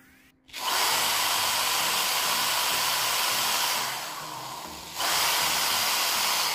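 Electric drill running steadily, a loud whirring hiss with a faint steady whine, used to bore a soft wooden lure body. It starts sharply, eases off about three seconds later and comes back at full strength about a second after that.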